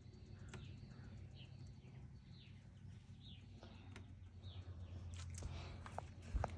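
A bird repeating a short falling chirp about once a second, over a faint steady low hum. A few footstep-like scuffs and clicks come near the end.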